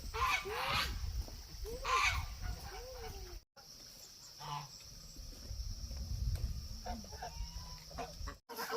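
Farm poultry calling: short arched calls repeating about once a second, which break off suddenly about three and a half seconds in, followed by quieter, scattered calls.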